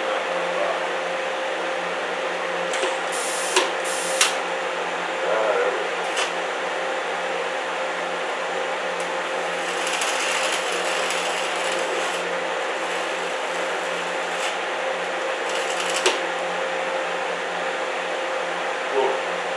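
Electric welder arc crackling steadily over a steady hum, with a few sharp pops about three and a half seconds in, at four seconds and near sixteen seconds. The popping and spitting comes from rust and other contamination between the two pressed-together pulley pieces being welded.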